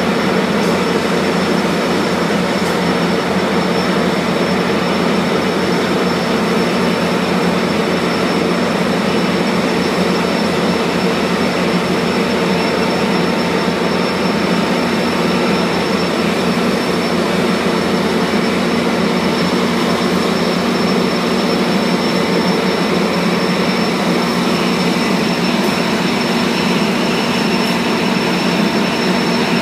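Amtrak F59PHI diesel locomotive's 12-cylinder EMD 710 engine running steadily at a standstill, a loud even drone with a thin high whine over it.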